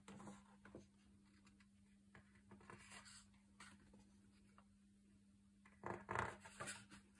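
Thick pages of a hardcover photo book being turned by hand: short soft rustles and slides of heavy paper, the loudest cluster about six seconds in as a page is swung over and laid flat. A faint steady hum sits underneath.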